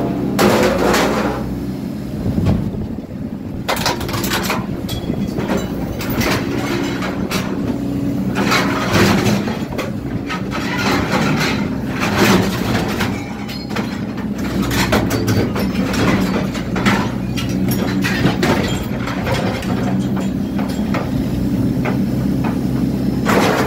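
Excavator's diesel engine running steadily under hydraulic load, with frequent metal clanks and scrapes as its shear attachment grabs chopped-up steel roo bars (vehicle bull bars) and drops them into a skip bin.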